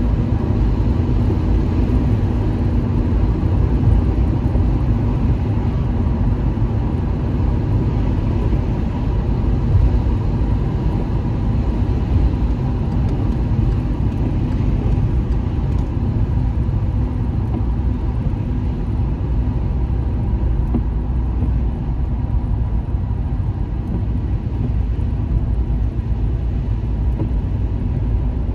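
A car travelling at highway speed, heard from inside the cabin: a steady low rumble of tyre and road noise with the engine underneath, no change in speed.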